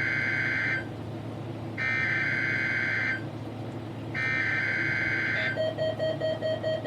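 NOAA Weather Radio SAME alert header for the weekly test: three buzzy bursts of digital data tones, each about a second and a half long, separated by short gaps. About five and a half seconds in, a pulsing tone begins.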